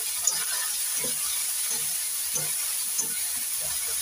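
Onion-tomato masala with ground spices sizzling in hot oil in a metal kadhai, with a flat metal spatula stirring and scraping it in short, irregular strokes. The masala is being fried until the oil separates.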